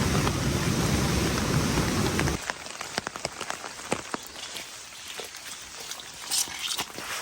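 A loud, steady rushing noise cuts off abruptly about two and a half seconds in, giving way to scattered drops of water pattering irregularly on a surface.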